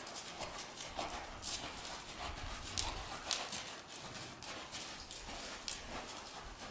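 Horse's hooves striking sand arena footing under a rider, an irregular run of soft strikes and sharp crunches.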